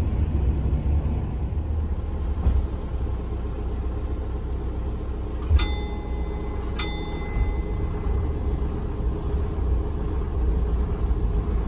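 Steady low engine and running rumble of the Asa Kaigan Railway DMV93 dual-mode vehicle on the move. About halfway through, two short ringing dings sound a little over a second apart.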